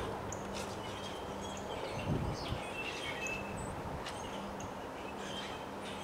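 Strong wind blowing through bare trees, with a gust hitting the microphone as a low rumble about two seconds in. Small birds chirp several times over the wind.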